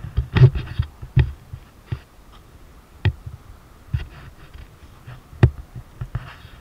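Wind buffeting a handheld action camera's microphone in uneven low rumbles, with a handful of sharp clicks and knocks from the camera pole being handled.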